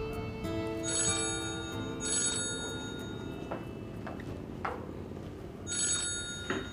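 Mobile phone ringtone sounding in short bright chiming bursts, about a second in, about two seconds in and again near the end, over soft background music. The phone is an incoming call going unanswered.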